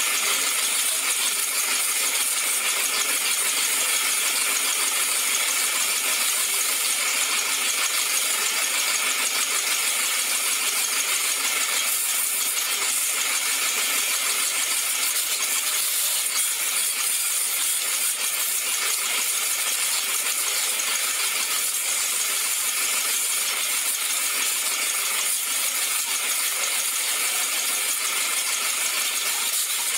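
High-pressure washer jet spraying steadily onto a motorcycle's wheels and frame and the wet concrete floor, a continuous loud hiss with no pauses.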